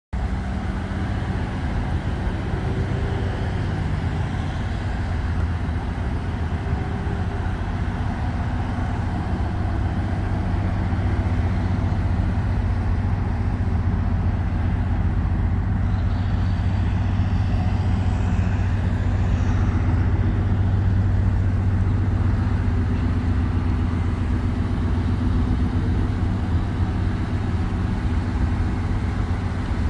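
Supercharged 5.4-litre V8 of a 2002 Ford F-150 Harley-Davidson edition idling steadily, a low even hum that swells a little in the middle as the microphone moves around the truck.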